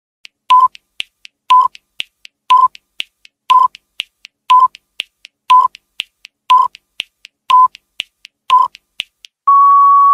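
Countdown timer sound effect: a short electronic beep once a second, nine in all, with faint ticks between them. Near the end comes one longer steady beep as the count reaches zero.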